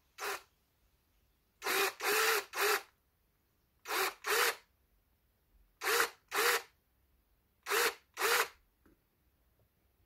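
Cordless drill run in about ten short bursts, in pairs and threes every couple of seconds, each spinning up and stopping. It is turning the freshly rebuilt oil pump of a Dnepr MT 10-36 sidecar engine to check that the pump works.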